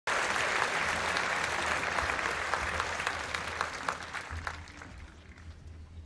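Audience applauding, a dense clapping that thins out and dies away over the last two seconds or so.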